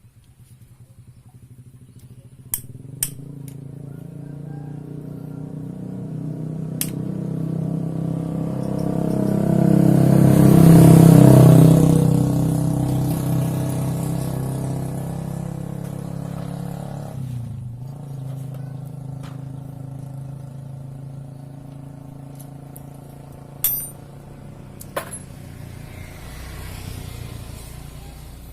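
A motor vehicle's engine passing by, growing louder for about ten seconds, then dropping in pitch and fading away. A few sharp clicks are heard near the start and near the end.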